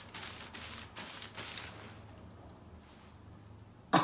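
Faint rustling handling noise: a quick run of soft swishes, about three a second, that die away after the first second and a half, leaving a low hum.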